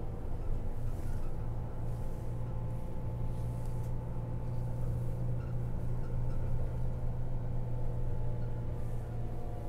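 Coach bus engine drone and road noise heard from inside the passenger cabin while the bus is moving: a steady low hum with faint higher engine tones.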